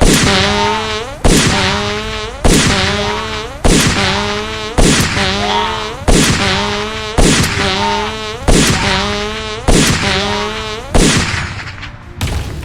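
Cartoon tank gun firing over and over, about ten shots roughly every 1.2 seconds. Each shot is a sharp crack followed by a wavering, buzzing tone that fades away.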